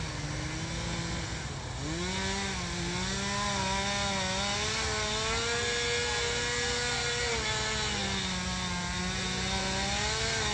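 Two-stroke chainsaw running at high revs while cutting wood; its engine pitch rises about two seconds in and then wavers up and down as the chain works through the cut.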